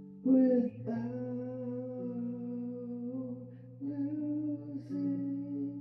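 Music: a voice sings long held notes, moving to a new note about every second, over a steady chord of sustained tones. The voice comes in loudest at the very start.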